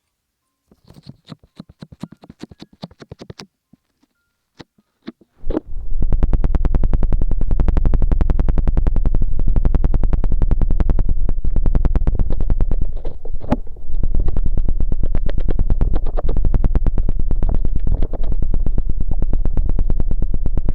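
Hands rubbing and massaging the ears of a binaural microphone, heard close up as a rapid crackling rub. It is light and patchy at first; from about five seconds in it becomes a loud, dense, continuous crackle with a heavy low rumble.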